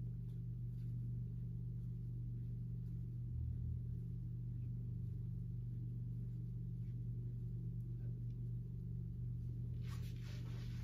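Steady low background hum with a few faint soft clicks; a short breathy sound comes in near the end.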